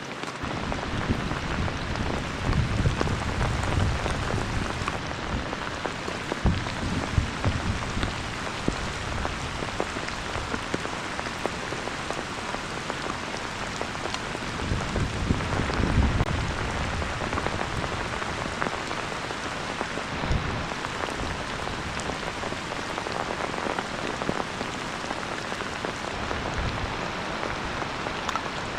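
Heavy rain falling steadily, a dense hiss of drops on surfaces, with a few louder swells carrying a low rumble.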